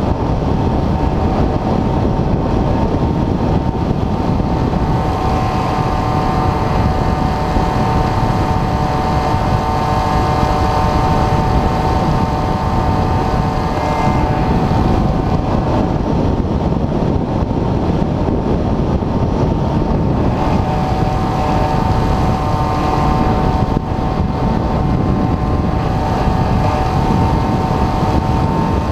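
Airflow rushing over the onboard camera of an Airfield Extreme Surfer 2400mm RC motor glider, with the steady whine of its electric motor and propeller. The whine grows stronger about five seconds in, eases off around the middle, and strengthens again about twenty seconds in.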